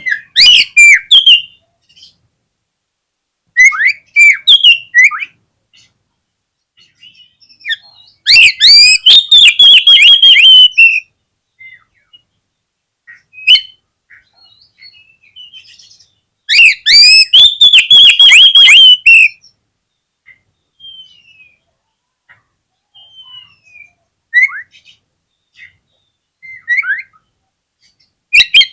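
Oriental magpie-robin singing in loud bursts of quick, falling whistled notes. Two longer bursts of about two to three seconds each come in the middle, with short phrases and scattered quieter notes between them.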